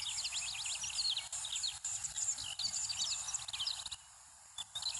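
Ambience of many small birds chirping and twittering rapidly over a steady high hiss. Both drop out briefly about four seconds in, then the chirping resumes.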